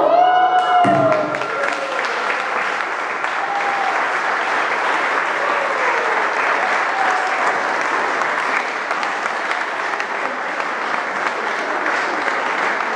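A choir's final held note ends about a second in, then a hall audience applauds steadily.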